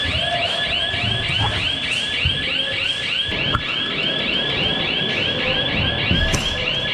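An electronic alarm sounding a fast warbling whoop, about four rising-and-falling chirps a second, keeping up steadily, with low thumps and rustling beneath.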